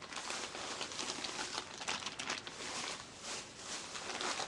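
Plastic fishing-bait packages crinkling and rustling as they are handled, a dense irregular crackle.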